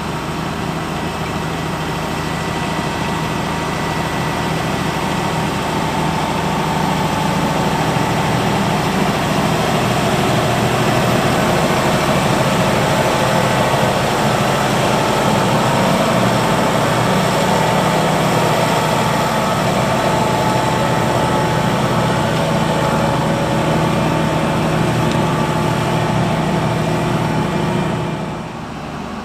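Fendt 724 tractor engine running steadily, growing louder toward the middle and dropping off suddenly near the end.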